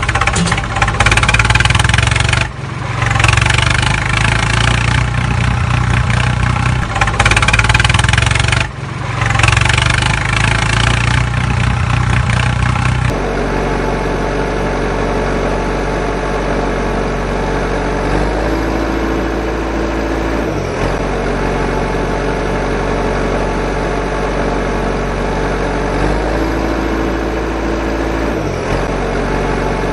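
Diesel vehicle engine running, with two brief dropouts. About halfway it changes to a steady idle, and a whine rises, holds for a couple of seconds and falls, twice.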